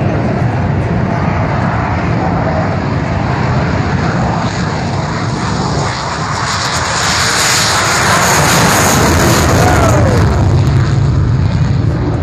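Jet aircraft engine roar growing louder as a jet makes a low pass, loudest about eight to ten seconds in, with a whine that falls in pitch as it goes by.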